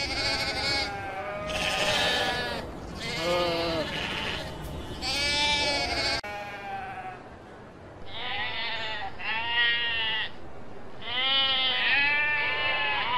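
Sheep bleating again and again: a string of quavering bleats about a second long each, some pitched lower than others.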